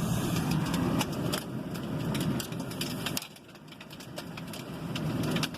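Heavy rainstorm with wind battering the building: a dense, rumbling wash of rain with scattered sharp ticks of drops striking the boarded-up window. It drops off suddenly about three seconds in, then builds again.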